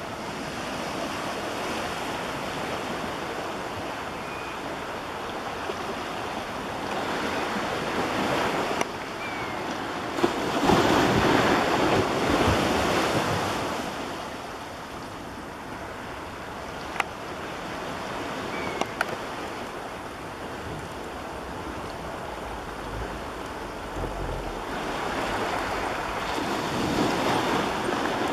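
Small ocean waves washing onto the beach, a steady wash that swells louder about ten seconds in and again near the end, with a few short clicks.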